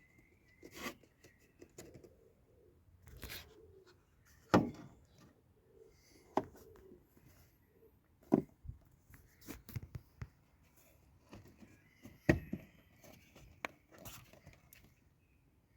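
Hands handling a plastic engine air filter housing and filter: scattered sharp clicks and knocks with light rustling, the loudest knocks about four and a half and twelve seconds in.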